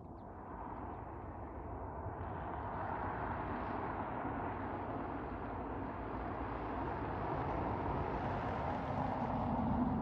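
A car approaching on a road, its tyre and engine noise growing steadily louder, with a low engine hum coming up near the end.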